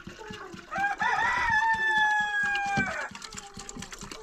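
A rooster crowing once: a few short rising notes, then a long held note that ends abruptly after about two seconds.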